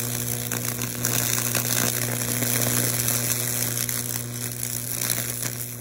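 Microwave-oven transformer humming steadily under load while it drives high voltage through wet wood, with a hissing, crackling sizzle from the wood burning between the electrodes.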